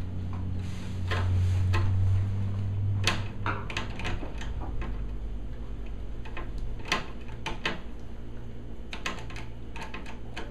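Scattered light clicks and small metallic knocks from a hand screwdriver fastening the power supply board to the TV's metal chassis, then from wire harnesses and their plastic connectors being handled. A low hum runs through the first two seconds.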